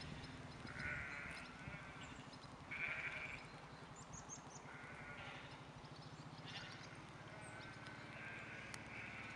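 Sheep bleating in a field: about five faint bleats, roughly two seconds apart, over a low steady hum.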